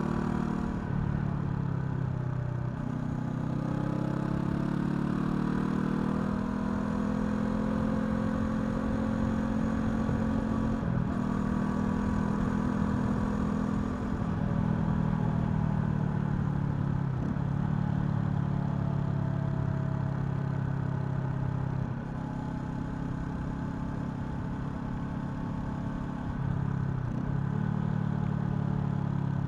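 Honda CL500's 471 cc parallel-twin engine running under way. Its note falls and then climbs again early on, and has several brief dips through the rest, as between gear changes. It is a little quieter for a few seconds past the middle.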